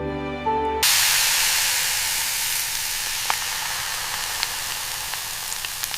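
Food sizzling in hot fat in a pan. The sizzle starts suddenly about a second in, as soft music notes stop, then fades slowly, with scattered crackling pops.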